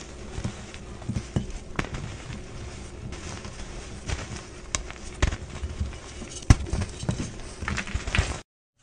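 Blocks of dyed gym chalk being crushed and crumbled by hand into loose chalk powder: a steady dry crunching and crackling with scattered sharp snaps, the loudest about two-thirds of the way through. The sound cuts off abruptly near the end.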